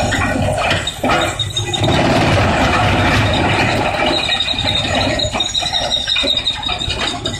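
Industrial wood crusher running and shredding wood: a loud, dense grinding noise, joined about four seconds in by a steady high-pitched squeal.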